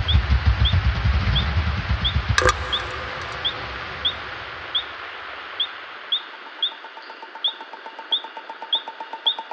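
Synthesizer-based electronic music in a breakdown: a bass pulse fades away over the first half while short, high chirps repeat at an even pace, a little under twice a second, over a thinning hiss. A sharp click comes about two and a half seconds in, and a steady mid-pitched tone comes in past the middle.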